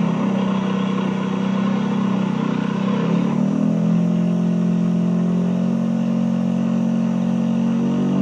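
Single-rotor Mazda rotary aircraft engine running steadily, its pitch shifting briefly about three seconds in.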